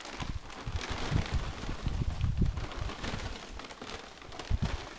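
Loose material poured from a bag into a large pot, a dense rattling patter like rain, with low thumps underneath.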